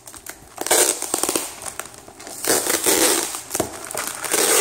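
Butter knife cutting and ripping the packing tape on a cardboard shipping box, in three loud bursts of scraping and tearing with small clicks between.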